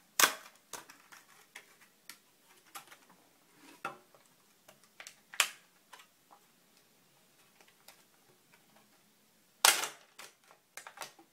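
Packaging of new laptop RAM modules being opened by hand: a scatter of sharp clicks and snaps, three of them louder, near the start, about five seconds in and near the end.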